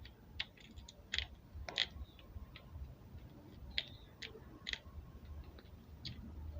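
Irregular small sharp clicks and ticks, about two a second, from a tool working the pins of an amplifier IC loose from a circuit board during desoldering.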